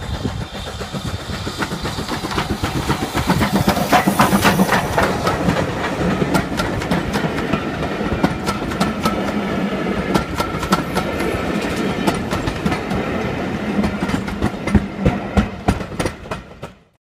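Heritage train hauled by Southern Railway U class steam locomotive 31806 running past close by, its wheels clicking over the rail joints again and again over a steady rumble. The sound cuts off suddenly near the end.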